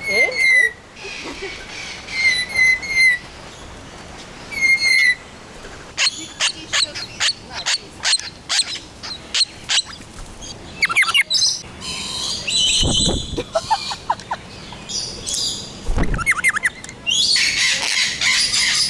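Parrots calling: short repeated chirps at first, then a run of sharp, rapid calls, harsh screeches, and a dense burst of shrill calling near the end.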